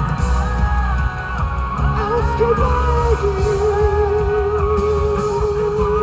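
Live band playing a rock song with guitar. About halfway through, a single long note with vibrato begins and is held.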